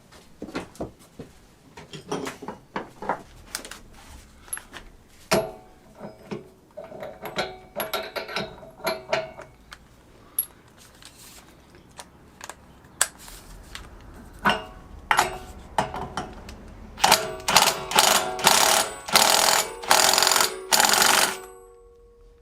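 Metal parts and hand tools clicking and knocking while working on a drill press's spindle pulley, then near the end about six short, loud bursts of a cordless impact driver hammering on the pulley nut.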